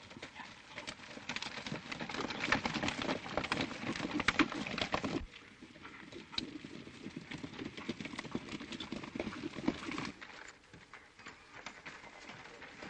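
Hooves of a group of horses clopping on a dirt trail as riders lead a string of horses. The hoofbeats are loud at first, drop sharply quieter about five seconds in, then continue more faintly.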